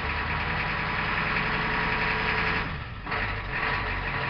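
Ford IDI non-turbo diesel V8 running on a cold start without a block heater, heard from inside the truck's cab. The sound drops briefly about three seconds in, then the engine carries on running steadily.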